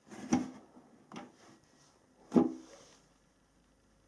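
Handling knocks and rubs as hands move on and off an LED bulkhead light fitting: three short knocks about a second apart, the loudest about two and a half seconds in.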